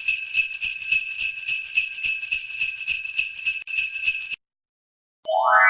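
Sleigh bells jingling in a steady shaking rhythm of about three shakes a second, announcing Santa's approach; the jingling cuts off suddenly. After a short gap, a rising electronic tone begins at the very end.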